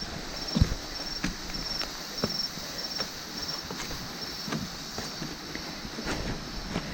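Jungle insects chirping, a high-pitched call repeating about every half second over a steady hiss, with scattered footsteps and knocks on a leafy, muddy trail.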